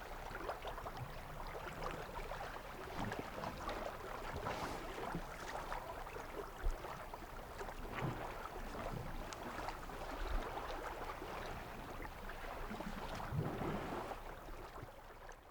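Outdoor ambience: a steady rushing noise like wind or moving water, with scattered small clicks, a few low thumps and brief low rumbles, fading out at the end.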